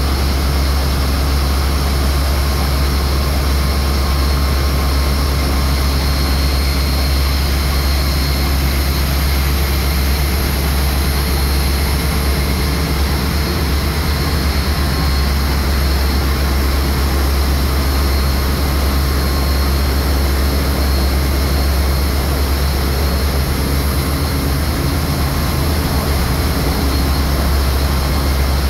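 Machinery in a bulk carrier's engine room running: a loud, steady din with a deep low hum and a few faint high steady tones.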